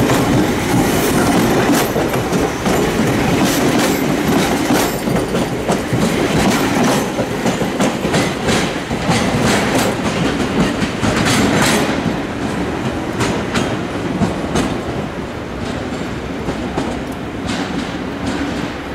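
Toyama Chiho Railway 14760-series electric train running over jointed track and points: a steady running hum with many sharp wheel clicks over the rail joints.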